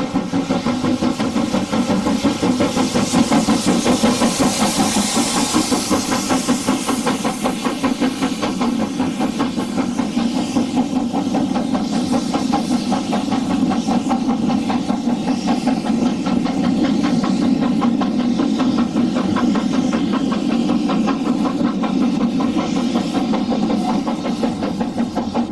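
LMS Black 5 two-cylinder 4-6-0 steam locomotive working on the main line, its exhaust beats coming fast and even over steam hiss.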